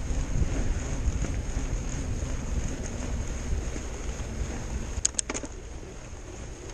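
Fat bike riding over a snowy trail: a steady low rumble from the tyres and bike with wind noise, and a quick run of three or four sharp clicks about five seconds in.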